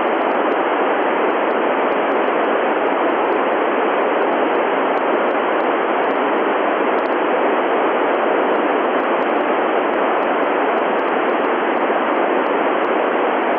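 Steady hiss of an FM amateur radio receiver tuned to the 145.800 MHz ISS downlink with no signal coming in: the station has stopped transmitting after an 'over', so only open-squelch receiver noise is heard.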